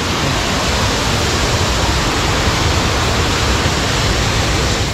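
Water pouring over a large dam, a loud, steady rush of falling water.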